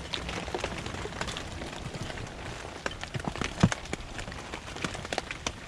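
Steady rain falling, with scattered sharp taps of drops hitting nearby surfaces at irregular intervals. The loudest tap comes a little past halfway through.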